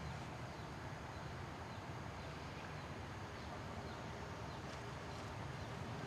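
Forest ambience: a steady low rumble and hiss with faint, short, high bird chirps now and then.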